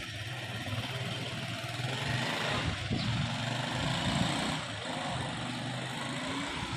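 An engine running steadily with a low hum and a noisy rattle over it.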